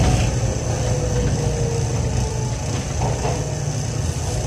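Running noise inside a Yamaman 1000-series rubber-tyred AGT (VONA) car: a steady low rumble with a faint whine that slides slowly lower.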